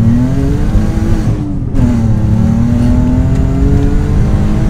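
Alfa Romeo 147 GTA's 3.2-litre Busso V6 accelerating hard, heard from inside the cabin. The revs climb steeply in first gear, drop with a quick upshift about a second and a half in, then climb again in second.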